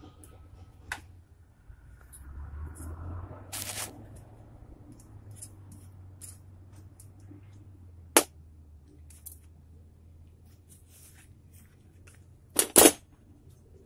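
Sharp knocks and small clicks of pliers and a bullet mold being handled while casting lead bullets, with a few louder knocks, the loudest a quick double knock near the end, over a low steady hum.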